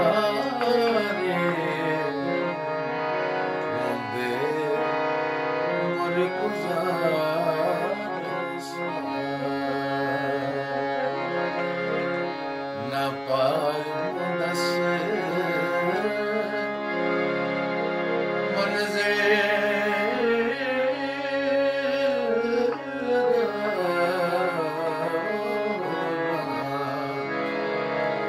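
A man singing a Punjabi folk song, his voice bending and sliding over the steady held chords of a harmonium that he plays himself.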